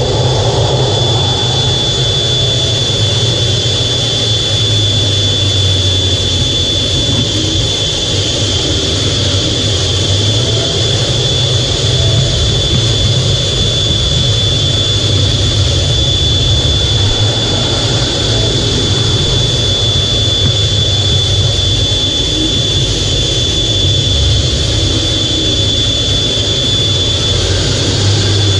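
F/A-18 jet engines heard from inside the cockpit: a steady rumble with a constant high whine over it.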